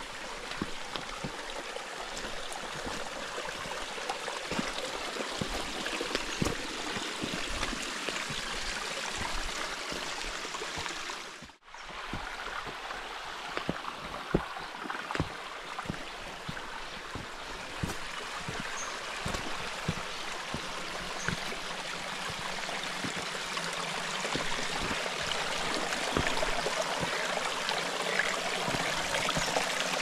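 Creek water flowing steadily over rocks, with short low thumps mixed in; the sound cuts out for a moment about halfway through.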